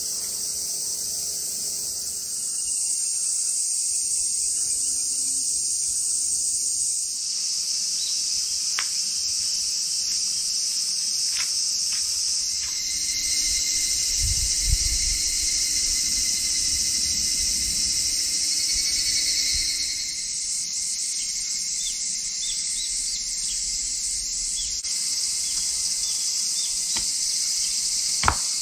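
Cicadas shrilling in a dense, steady high-pitched chorus in summer woodland, with a few faint short chirps and one sharp click near the end.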